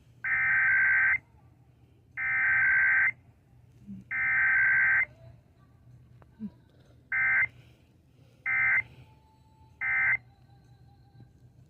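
Emergency Alert System SAME data tones in a radio weekly test. Three warbling header bursts about a second long come two seconds apart, then three short end-of-message bursts near the end.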